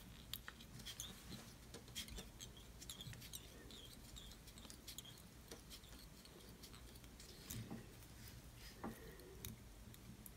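Faint, scattered ticks and scratches of tying thread being wrapped by hand from a bobbin around a jig head held in a vise, binding down a stiff monofilament weedguard.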